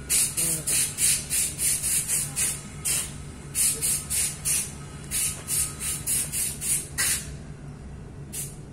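A pressurised spray hissing in quick short bursts, about four a second, with a brief break about three seconds in and a single last burst near the end, over a steady low hum.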